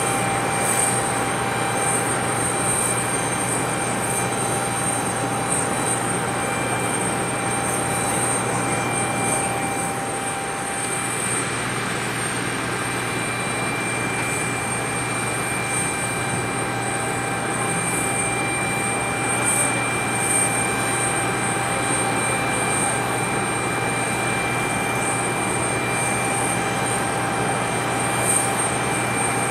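Steady aircraft engine noise with a constant whine, holding the same pitch and loudness throughout.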